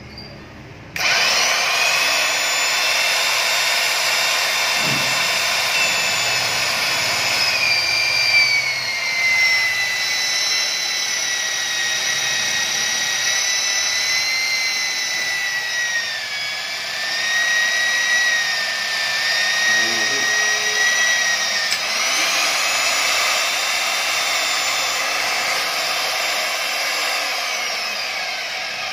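KPT KBRC40 magnetic drill's motor starts about a second in and runs with a steady high whine. Its pitch drops as the 40 mm broach cutter bites into the steel plate, sags lowest in the middle of the cut, then rises back as the cutter breaks through and the motor runs free, winding down near the end.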